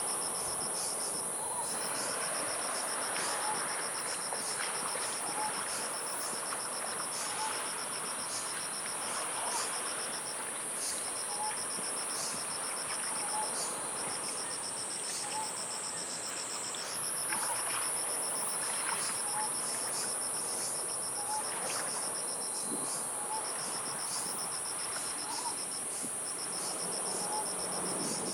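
Insects calling together: a continuous high-pitched buzz and a rapid pulsing cricket trill that breaks off briefly now and then, over a soft wash of surf. A short faint chirp repeats about every two seconds underneath.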